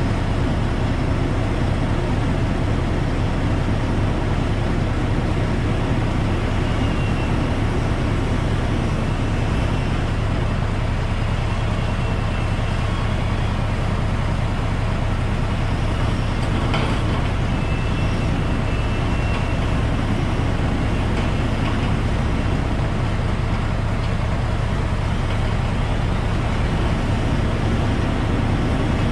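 Log truck engine running steadily with a low drone, with a single knock about halfway through.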